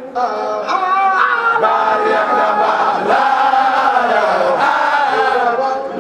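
A crowd of men chanting a Sufi zikr together: many voices singing one long, wavering devotional melody in unison.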